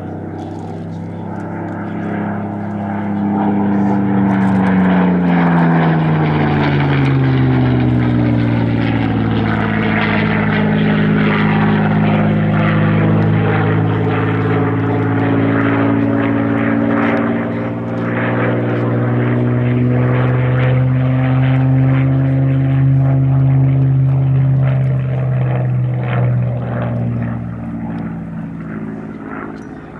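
Spitfire PR XI's Rolls-Royce Merlin V12 engine running in a flying display, passing by: its pitch drops sharply a few seconds in, then holds fairly steady before fading near the end.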